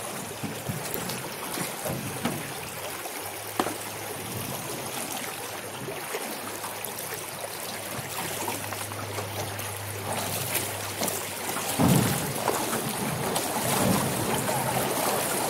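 Shallow river water running and trickling over rocks in low rapids, with a few light knocks. The water grows louder about twelve seconds in.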